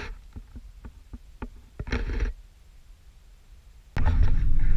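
A few small clicks and a short rustle inside a parked Jeep's cab. About four seconds in, the steady low rumble of the Jeep driving on the road starts, heard from inside the cab.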